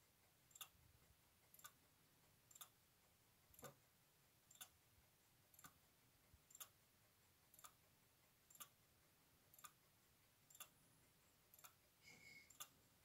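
Hettich electromechanical floating-balance clock movement ticking softly and evenly, about one tick a second.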